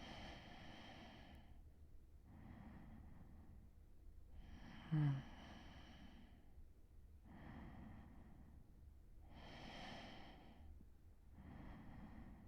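A man's slow, soft breathing while dozing, each inhale and exhale about a second long in a steady rhythm. About five seconds in, a brief low snort stands out as the loudest sound.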